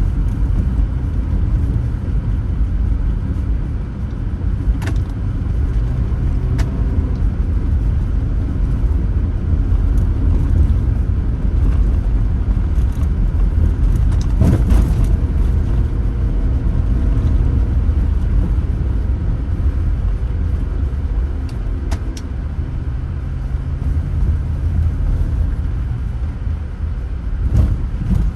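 A car driving on a road: a steady low rumble of engine and tyres, with a few brief sharp knocks along the way.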